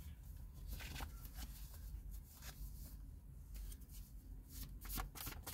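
Tarot cards being shuffled and handled: soft, scattered flicks and rustles, coming thick and fast near the end.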